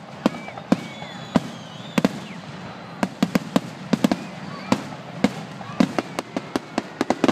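Aerial fireworks shells bursting in a grand-finale barrage: sharp bangs at irregular intervals, a few at first, then coming thick and fast from about three seconds in.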